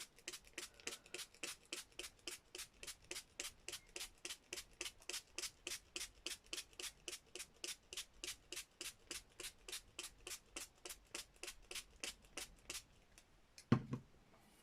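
Water being spritzed onto a page from a hand spray bottle: a steady run of short, quick sprays, about four a second, that stops shortly before the end. Near the end comes a single knock.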